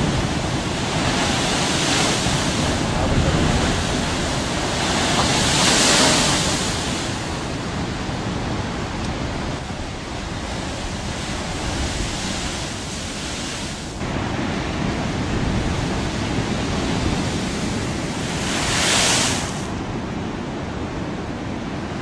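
Ocean surf breaking against a rocky shore: a steady wash of rushing water with surges of spray, the loudest about six seconds in and another near nineteen seconds.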